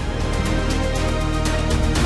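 Background music with a steady beat of regular percussive hits and held notes.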